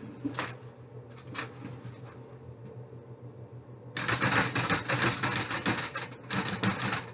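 Butter and olive oil sizzling and crackling in a hot pan, starting suddenly about four seconds in and lasting about three seconds; a few light utensil clicks come before it.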